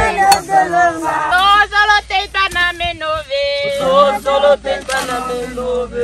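A group of people singing a work song together while hoeing a field, with wavering, drawn-out sung notes.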